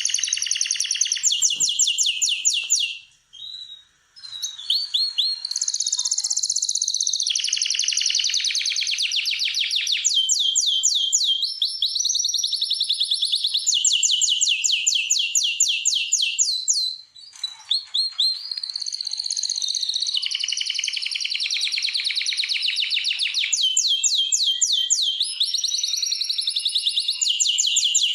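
Domestic canary singing: long runs of fast trills, each a rapid string of repeated notes, switching from one trill to the next, with two short breaks about three and seventeen seconds in.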